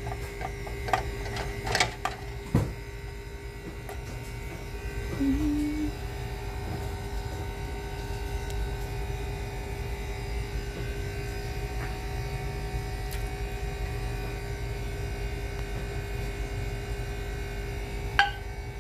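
A steady electrical hum throughout, with a few sharp clinks of metal on glass in the first three seconds as quart canning jars are handled at the pressure canner. Near the end comes a single sharp click, a jar lid starting to seal.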